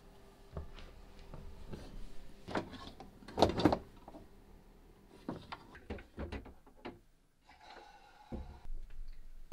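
Scattered knocks, clunks and rustles of hands working in wooden cabinetry and handling wiring, with the loudest clunks about three and a half seconds in.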